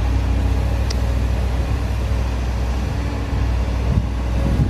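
Volvo crawler excavator's diesel engine running steadily with a low drone as the machine works its boom, with some rattling near the end.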